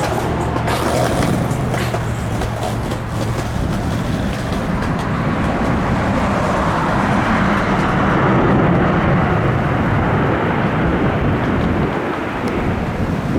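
Jet aircraft engines rumbling, swelling to a peak about two-thirds of the way through and then easing, as an airliner moves past on the ground.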